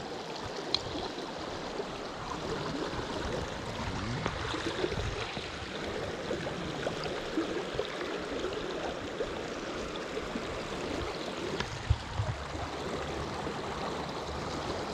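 Creek water flowing and gurgling steadily, with a few faint brief knocks.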